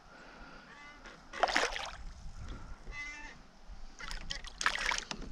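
A hooked walleye splashing at the water's surface as it is pulled up by hand beside a kayak: a burst of splashing about a second and a half in, and more splashing near the end.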